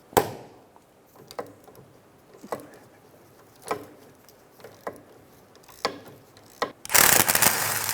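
Ratchet with a 19mm socket loosening a brake caliper bracket bolt: a sharp click about once a second, then a loud rattling burst lasting just under a second near the end.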